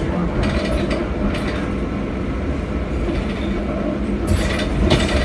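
Cabin noise inside a Proterra Catalyst BE35 battery-electric bus: a steady low rumble with rattling from the body and fittings. A louder rush of hiss and rattle comes in about four seconds in.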